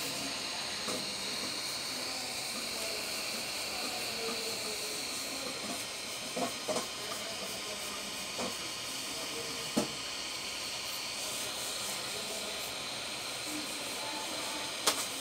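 Hot-air gun blowing steadily: a constant hiss with a faint high whine. A few light clicks and taps from handling come through it, the sharpest near the end.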